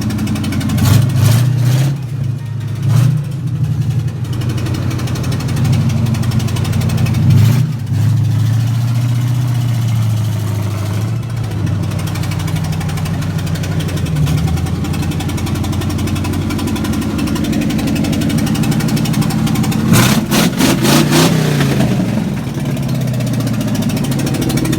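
A vehicle engine idling, blipped into short revs several times, with a run of quick revs about twenty seconds in.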